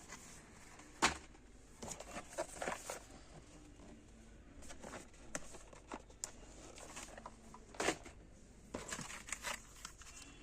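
Handling noises: scattered clicks, light knocks and crinkling, as of computer parts and their packaging being handled, with sharper clicks about a second in and near the eight-second mark.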